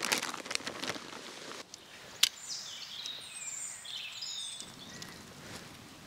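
Tent fabric rustling as it is handled, then a single sharp click about two seconds in as tent pole sections snap together. A bird then sings a quick series of short high whistles and chirps.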